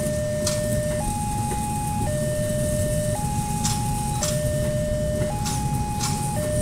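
Railway level-crossing warning siren sounding its two-tone signal, alternating between a lower and a higher tone, each held about a second: the crossing is warning of an approaching train. A steady low rumble runs underneath.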